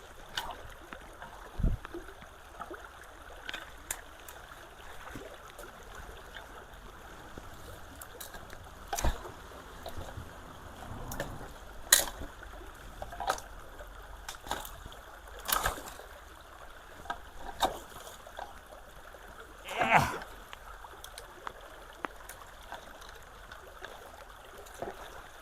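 Shallow creek water trickling steadily through a partly blocked culvert channel, with short splashes every few seconds as debris is pulled loose in the water. The loudest splash comes about twenty seconds in.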